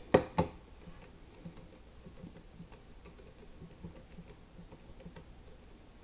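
A Casio ClassWiz scientific calculator is set down with two quick knocks, then its buttons are pressed one after another in a run of faint, short clicks as a sum is keyed in.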